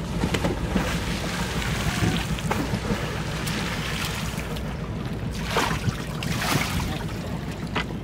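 Wind buffeting the microphone over choppy river water lapping against a wooden boat, with a few brief splashes in the second half.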